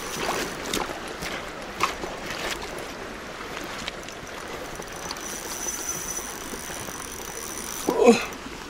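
Shallow, fast river running over a stony bed: a steady rush of flowing water, with a few faint knocks in the first couple of seconds and a faint high whine in the second half.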